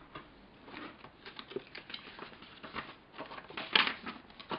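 Paper instruction sheets and clear-bagged plastic sprues being lifted and shuffled in a cardboard kit box: a string of irregular rustles and light taps, with a sharper knock a little before the end.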